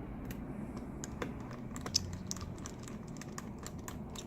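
Irregular light clicks and taps of small tools and parts being handled on an opened MacBook Pro during a screen replacement, the sharpest about two seconds in.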